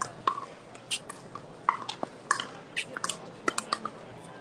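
Sharp pops of pickleball paddles striking the hollow plastic ball, about a dozen in quick, irregular succession as in a rally.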